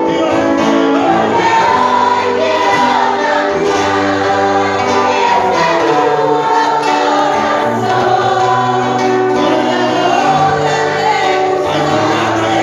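Congregational worship singing: a choir or congregation singing a slow Christian hymn over sustained instrumental chords and a steady bass.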